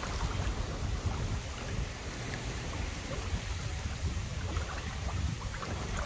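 Steady rush of water from a small waterfall on a beck, with wind rumbling on the microphone.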